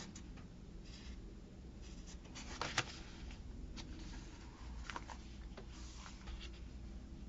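Paper rustling and small clicks as sticker book pages and sticker sheets are handled and turned, with one sharper tick about three seconds in.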